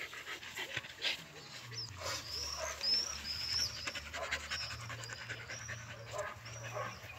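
Keeshond puppy panting. From about two seconds in, a run of short high chirps repeats roughly once a second.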